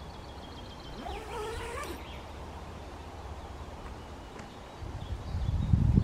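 A dog gives a short whine about a second in, its pitch bending up and down. A low rumbling builds near the end and becomes the loudest sound.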